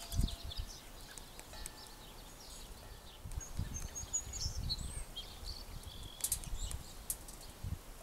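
Small songbirds chirping: short, high chirps and twitters scattered throughout, over irregular low rumbling bursts, the strongest just after the start and around the middle, with a few sharp clicks near the end.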